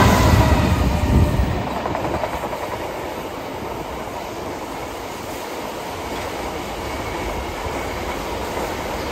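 Locomotive of an engineering train passing close by, loudest in the first second or so. Its flat wagons loaded with rails follow, rolling past with a steady rumble and clatter of wheels on the track.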